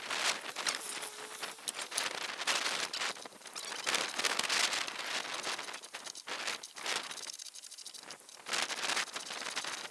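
Rustling and handling noises with scattered light metal clicks, as a gloved hand works loose and lifts out the engine steady bracket and thermostat housing parts.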